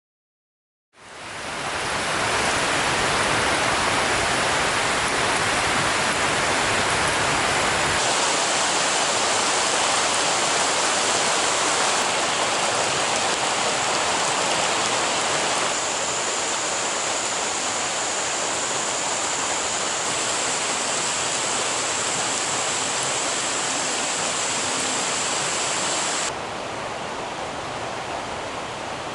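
Steady rushing of falling water, fading in about a second in and stepping down in level twice later on, as the shots change.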